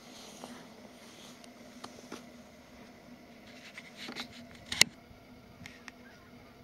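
Scattered faint clicks and taps, with one sharp click about five seconds in, over a faint steady low hum.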